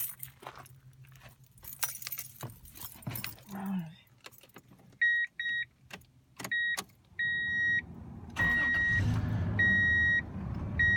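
Keys jangling, then a dashboard warning chime beeping over and over. About eight seconds in, a 2002 Toyota Tundra's 3.4-litre V6 cranks, starts and settles into a steady idle, with no belt squeal now that the alternator and power steering belts have been tightened.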